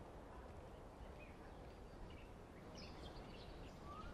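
Faint outdoor ambience with a few faint, brief bird chirps, the last a short rising one near the end.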